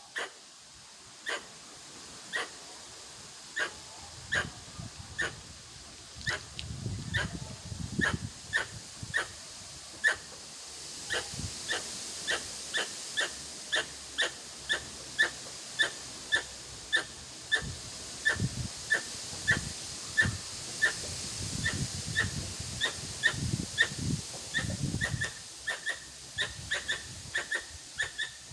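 Formosan squirrel (Pallas's squirrel) giving a long series of short, sharp, bark-like calls. They come about once a second at first and quicken to nearly two a second a little over a third of the way through.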